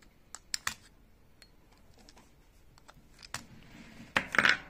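Small clicks of a rotary air-rifle pellet magazine being worked, with lead pellets pressed into its chambers by a pellet pusher. A few sharp clicks come in the first second, then a louder cluster of clicks and a short rattle about four seconds in.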